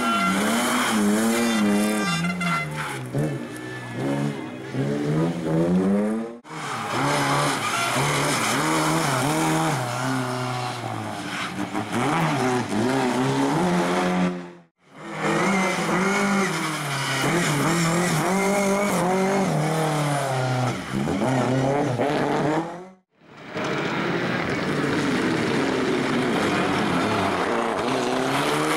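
Rally car engines revving hard and changing gear as the cars pass at speed, with some tyre squeal, in four short stretches split by abrupt cuts to silence.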